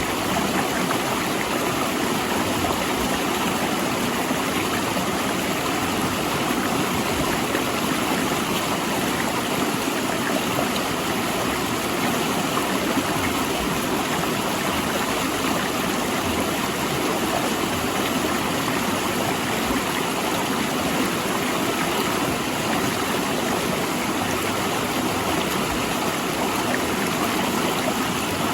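Mountain river rushing steadily over and between large rocks, an even, continuous water noise.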